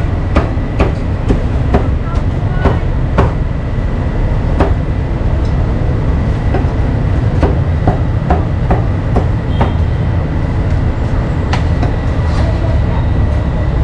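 Cleaver chopping roast meat on a wooden chopping block, sharp irregular strikes about two a second, over a steady low rumble of street noise.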